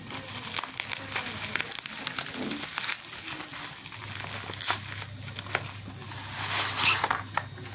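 Plastic bubble-wrap packaging crinkling and crackling as it is handled and pulled open, with many small irregular crackles and a louder burst of crackling near the end.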